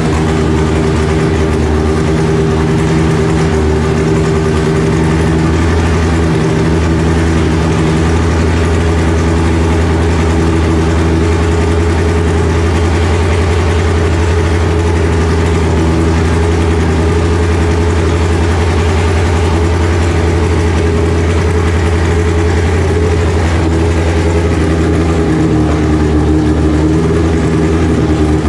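Car engine idling steadily on the dyno, its low tone shifting slightly about six seconds in and again near the end.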